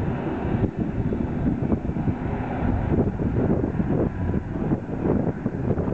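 Small single-engine propeller aircraft running as they taxi, heard under the gusty low rumble of wind buffeting the microphone.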